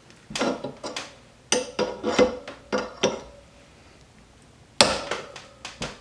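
Steel three-jaw gear puller and adjustable wrench clanking as they are handled on a blower motor's pulley: a run of sharp metal knocks, a pause of over a second, then more knocks near the end.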